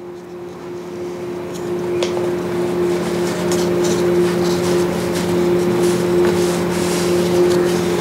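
A steady low hum that fades in and holds, with the light crackle and clicks of paper being creased and folded by hand.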